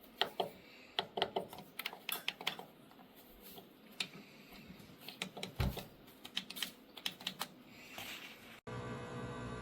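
A run of irregular light clicks and taps, with one dull thump a little past halfway. Near the end it cuts off abruptly and a steady hum takes over.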